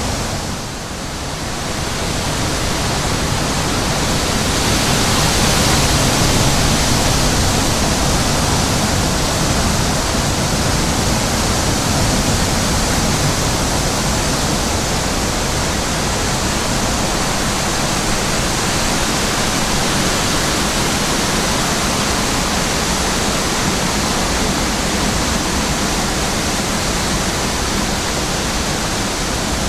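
Wind blowing across the microphone: a loud, steady rushing hiss that dips briefly about a second in.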